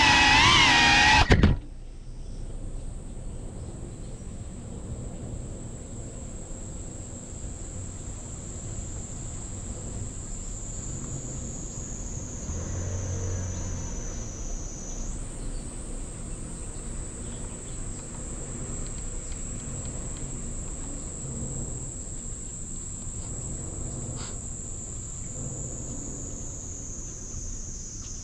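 Music cuts off about a second and a half in, leaving outdoor ambience dominated by a steady, high-pitched insect drone, likely cicadas, that slowly falls in pitch and jumps back up twice, over a low background rumble and a single faint click near the end.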